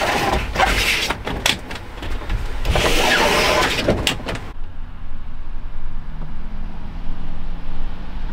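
Pleated cab window blinds in a campervan being slid open: two long, rattling slides, each followed by a few sharp clicks as the blinds catch in their frames. Afterwards rain patters steadily on the van.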